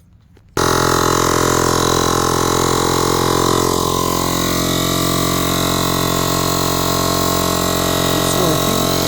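Small 12-volt portable tyre compressor switching on abruptly about half a second in and running with a steady, unchanging hum while inflating a collapsible space-saver spare tyre. It is a low-output pump, slow to fill the tyre.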